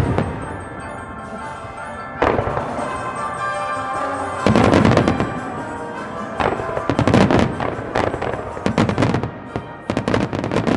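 Fireworks bursting in rapid volleys, with sharp bangs and crackle in dense clusters: one about two seconds in, then heavier runs about four and a half seconds in and from about seven seconds on. Music plays underneath throughout.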